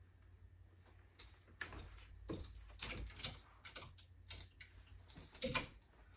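Clothes hangers clicking and scraping on a closet rod as garments are hung up: a string of irregular clicks and short scrapes, the loudest about five and a half seconds in.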